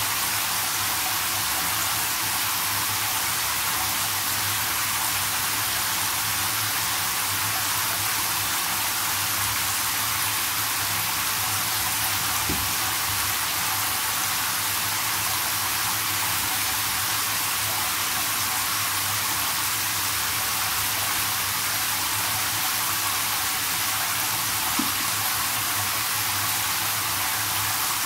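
Shower head spraying water into a filling whirlpool bathtub: a steady hiss of running water splashing on the tub and water surface.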